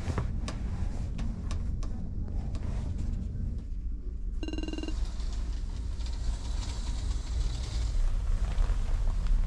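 Steady low drone of the ferry's engines carried through the cabin, with clicks and knocks of movement in the first few seconds. About halfway through, a brief squeak as the capsule curtain is slid along its rail, followed by rustling of the duvet.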